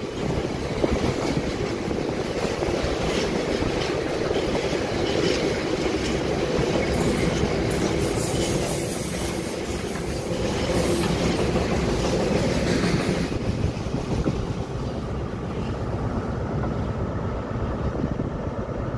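Diesel-hauled engineering train running along the track, a steady rumble of locomotive and wagons, with high-pitched wheel squeal in the middle few seconds.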